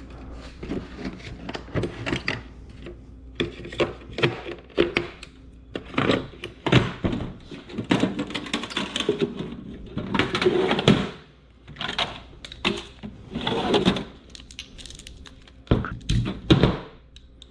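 Loose metal sockets and tools clinking and rattling, picked through by hand to find a 17 mm socket, with irregular clicks and knocks throughout.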